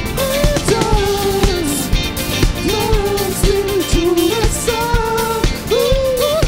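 Live rock band playing: drum kit with a steady kick about twice a second, electric guitars, bass and keyboards, with a sung melody line sliding over the top.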